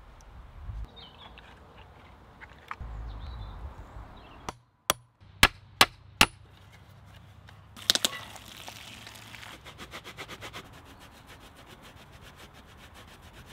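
Wooden hand-work sounds: a few faint clicks, then a hammer striking a small wooden frame about five times in under two seconds, the loudest sounds here. Then comes a fast, even run of strokes from a blade scraping along a wooden stick.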